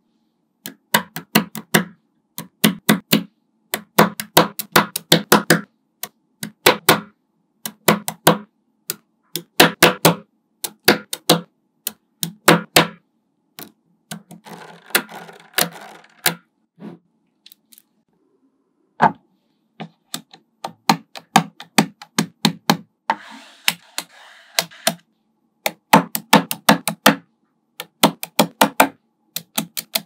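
Small metal magnetic balls clicking as they snap onto one another, in quick clusters of sharp clicks. There are two longer stretches of softer rattling, one about halfway through and one about three-quarters of the way in.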